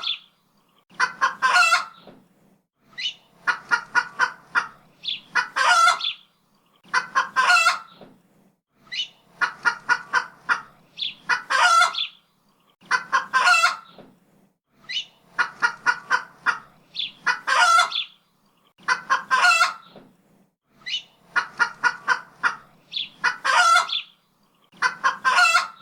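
Chicken clucking in regular bouts about every two seconds. Each bout is a quick run of short clucks ending in a longer, louder squawk, the way a hen cackles.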